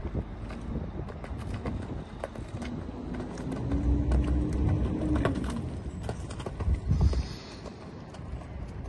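Horse cantering on a sand arena, its hoofbeats sounding as irregular knocks. A low rumble swells in the middle, with a drawn-out low tone that rises and falls, and there is a louder knock about seven seconds in.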